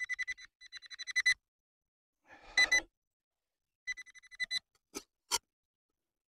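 Handheld metal-detecting pinpointer giving its alert, a fast pulsing beep at one fixed pitch in three short bursts, which signals metal close to the probe. Two sharp clicks follow near the end.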